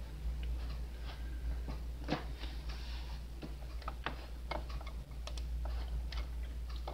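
Light clicks and ticks, about two a second and unevenly spaced, over a steady low hum.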